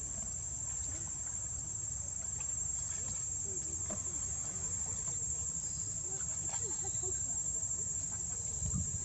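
Insects droning steadily on one high pitch, over a low rumble, with faint short wavering calls now and then in the middle.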